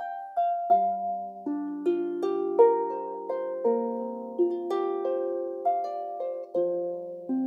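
Celtic harp playing a slow melody of plucked notes, about two a second, each ringing on under the next.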